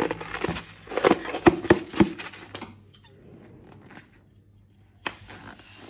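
Rubber balloons being handled: a run of short clicks and squeaks for the first two and a half seconds, then much quieter, with one more click about five seconds in.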